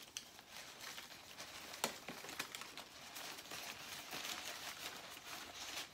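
Paper wrapping crinkling and rustling as it is peeled off a plastic plant pot by hand, with a sharp click about two seconds in.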